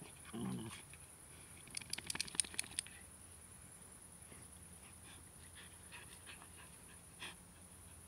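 Two Glen of Imaal Terriers playing in sandy soil: a short low dog vocalisation about half a second in, then about a second of rapid sharp scratching clicks as the dogs scuffle in the sand, with a few faint scuffs later.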